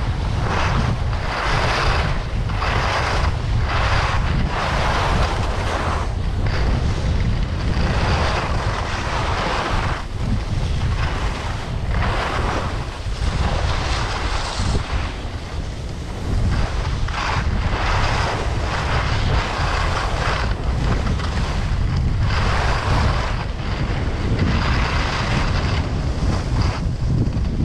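Wind buffeting the microphone during a ski descent, a heavy low rumble, under the hiss of skis on snow that swells and fades in repeated surges, one with each turn.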